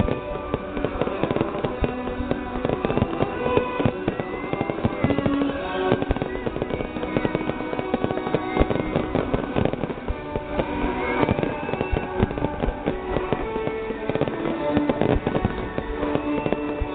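Festive fireworks display: a dense, continuous run of bangs and crackles, with music playing at the same time.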